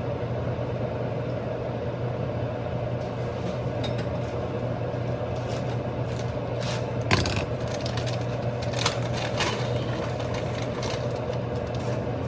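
A steady low mechanical hum runs throughout, with scattered clicks and knocks of kitchen items; the loudest knock comes about seven seconds in.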